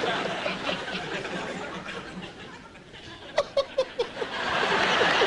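A man laughing, dying down and then breaking into a quick run of about five short laughs about three and a half seconds in.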